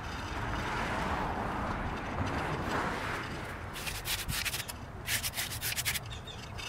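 Rubbing and scraping in wet concrete as a basketball-hoop anchor plate is worked into a concrete-filled tube: a gritty rub for the first three seconds or so, then a quick run of sharper, scratchy trowel scrapes.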